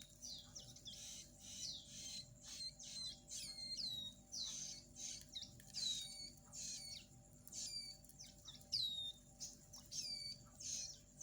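Hand-fed nestling songbirds begging: a quick, irregular run of short, high chirps, each sliding downward in pitch, as they take food. A faint steady hum lies underneath.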